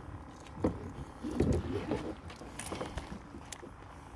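Two dull thumps in the first two seconds, then scattered light clicks and rattles: a landing net and tackle being handled on a kayak as a large fish is netted.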